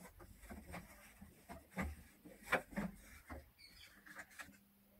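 Light clicks and knocks of wooden jig parts being handled and pivoted by hand, with a few sharper knocks in the middle. A faint steady hum comes in near the end.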